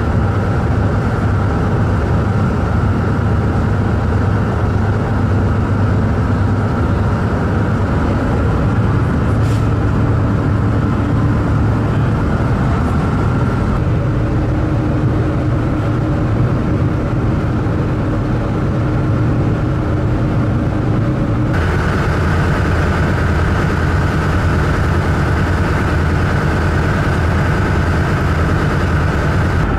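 Car ferry's engines and machinery droning steadily, a heavy low hum with a few steady tones over it, heard from the car deck. The drone changes character abruptly twice, at about a third and two-thirds of the way through.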